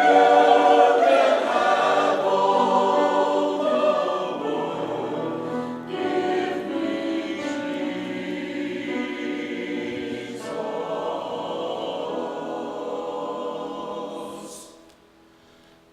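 Church choir singing held chords; the last chord fades out shortly before the end.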